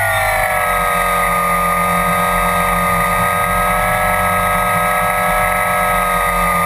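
Motors and propellers of a small RC camera aircraft, heard from its onboard camera: a whine of several close pitches that drops a little at the start and then holds steady. Low wind rumble on the microphone runs underneath.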